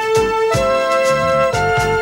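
Instrumental music: sustained melody notes that change about once a second over a steady beat.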